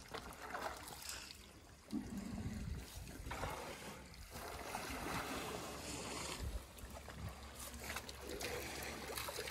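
Water trickling and splashing as elephants suck it up in their trunks and pour it into their mouths, coming in several rushes.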